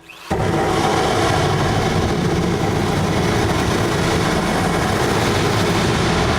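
Harsh noise music: a loud, dense wall of distorted noise that cuts in suddenly a moment in and holds steady.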